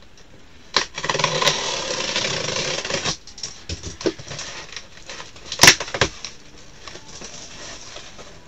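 Cardboard shipping box being opened: a long tearing rasp about a second in as the packing tape along the seam is slit with a box cutter, then cardboard flaps rustling, with one sharp crack near the six-second mark.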